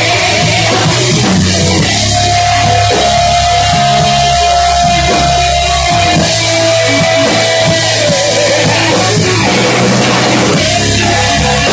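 Live rock band playing loud: electric guitar and drum kit, with a long held note through the middle.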